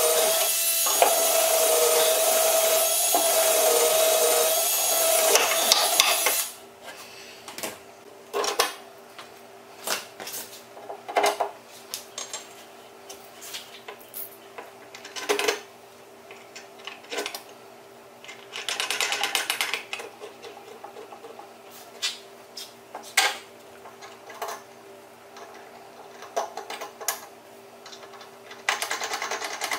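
A handheld power tool runs steadily with a whine, then cuts off suddenly about six seconds in. After that come scattered knocks and taps of boards and tools being handled, with two short buzzing power-tool bursts, one near the middle and one near the end.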